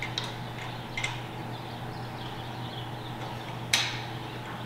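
Small clicks and taps of bolts and mount hardware being handled by hand on a metal roof rack, with one sharper click about three-quarters of the way through, over a steady low hum.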